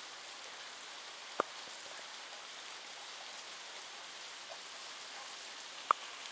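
Heavy rain falling steadily on wet asphalt, a constant hiss, with two sharp taps, one about a second and a half in and a louder one near the end.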